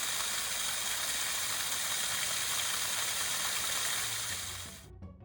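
Waterfall running with strong flow after a rainstorm: a steady rush of falling water. It cuts off near the end as music with a drumbeat starts.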